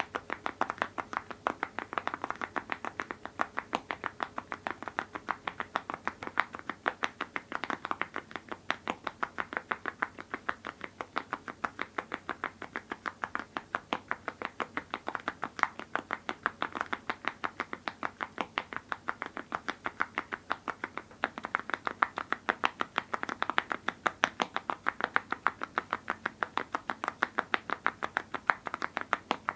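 Mechanical keyboard with full-metal Awekeys keycaps on linear switches, typed on rapidly and steadily: a continuous stream of sharp, metallic-edged key strikes, several per second.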